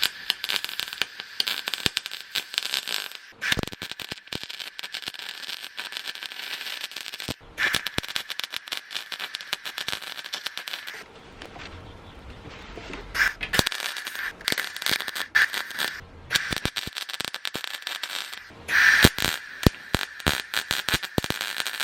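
Electric arc welding crackling steadily in several long runs, with a short break about halfway, as a steel washer is welded over a hole in a car door's sheet metal. The welder is set too high and is melting the thin steel a little.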